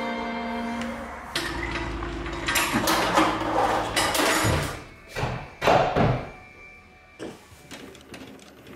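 Background music fading out in the first second or so. Then a run of hand-work knocks and thumps, loudest in the middle, over a low hum, trailing off into a few faint taps.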